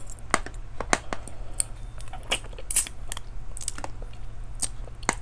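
Metal spoon and fork clicking and scraping irregularly on a ceramic plate as cooked fish is picked apart and its bones removed, with a steady low hum underneath.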